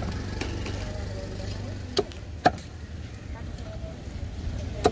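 A heavy fish knife chopping through tuna into a wooden chopping block: sharp knocks about two seconds in, again half a second later, and once near the end, over a low steady rumble.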